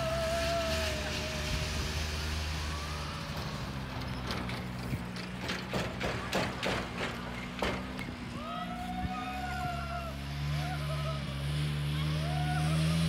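Snowmobile engine running steadily while towing a loaded banana boat across snow, its pitch rising in the last few seconds as it comes closer. A run of sharp clicks in the middle, and a few long, high arching calls over the engine.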